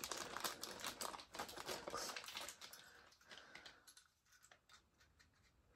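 Light clicking and rustling of a plastic toy vehicle and its packaging being handled, a quick run of clicks that thins out after about three seconds into near silence with a few scattered clicks.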